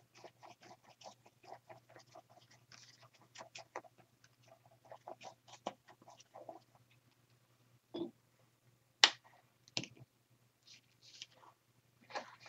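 Paintbrush scrubbing paint onto a paper journal page: many faint, quick scratchy strokes, then a few sharper knocks about eight to ten seconds in as the strokes stop. A faint low hum runs underneath.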